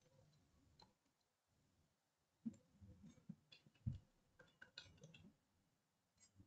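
Near silence with faint clicks and taps of a stylus on a pen tablet during handwriting. Most of them come in the middle stretch, with a dull knock about four seconds in.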